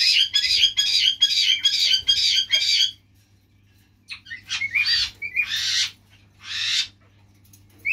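Young blue kakariki chick squawking: a fast run of harsh, raspy calls for about three seconds, then after a short pause three briefer bursts of squawks.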